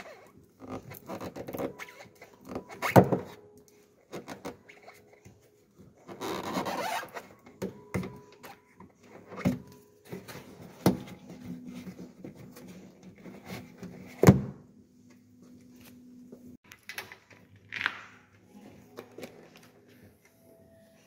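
Hands and a thin metal tool working the rubber wiring boot at a Volkswagen Passat B5 tailgate: irregular scraping, rubbing and clicking of rubber, plastic and metal. Two sharp knocks stand out, about three seconds in and again past the middle.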